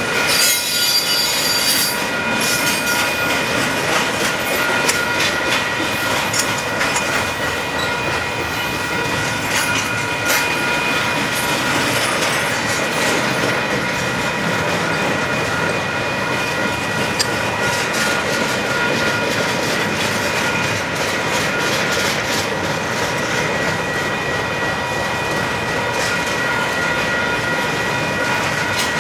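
Union Pacific double-stack container freight train rolling past at steady speed: a continuous rumble of railcars with wheel clatter over the rails and a steady high-pitched wheel squeal.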